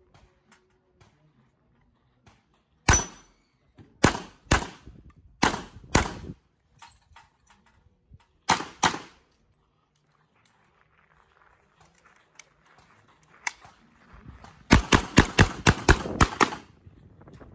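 Taurus CTT40 semi-automatic carbine in .40 S&W firing a stage of shots, mostly in quick pairs, then after a lull a rapid string of about eight shots near the end.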